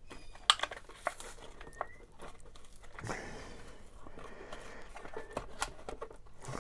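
Plastic packaging crinkling and rustling as a Smashers plastic toy eyeball is handled, with a few sharp plastic clicks, the loudest about half a second in.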